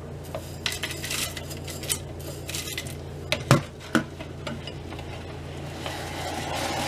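A metal spoon tapping and scraping against thin plastic cups, with a few sharp knocks, as potassium hydroxide lye is knocked off it and stirred into hot glycerin and water. Near the end a soft, rising hiss as the hot lye solution bubbles up.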